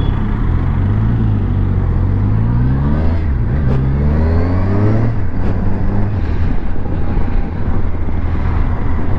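Kawasaki Versys 1000's inline-four engine, on its stock exhaust, accelerating away through the gears. Its pitch rises and drops back at each upshift, three times in the first five seconds, then it runs at a steady cruise.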